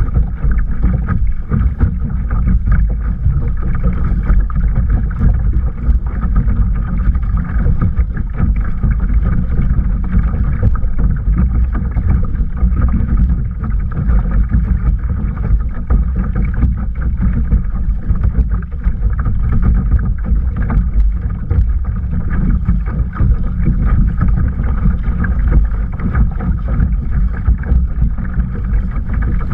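Steady wind rumble on the camera's microphone over water rushing and splashing along a sit-on-top kayak's hull as it is paddled.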